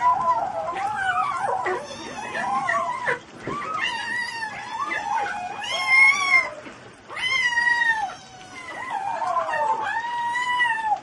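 A cat yowling in a string of long, drawn-out calls whose pitch wavers and bends, about five in a row with short pauses between them.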